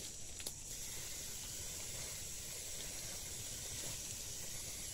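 Aerosol wound spray hissing steadily as it is sprayed onto an elephant's wound, laying a blue antiseptic coat on the hide. The hiss stops abruptly right at the end.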